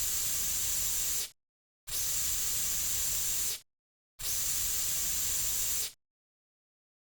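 Narrow-nozzle cockroach insecticide aerosol can spraying in three bursts of about a second and a half each, a steady high hiss that starts and stops sharply with full silence between.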